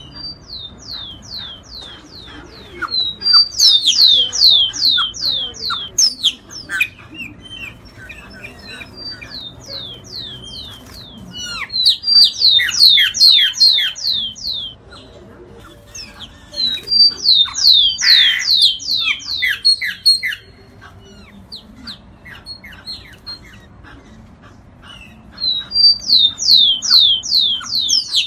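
Giant cowbird song: four loud bursts of rapid, high, downslurred notes, about eight a second, each burst lasting about three seconds, with softer scattered calls between them.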